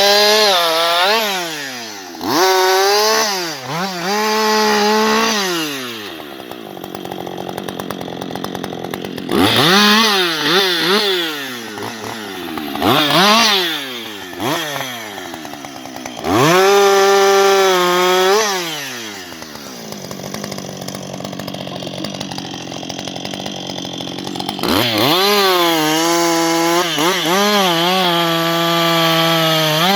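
Husqvarna 560XP two-stroke chainsaw revved to full throttle about six times, dropping back to idle in between. At high revs the pitch sags and wavers, as it does when the chain is cutting wood.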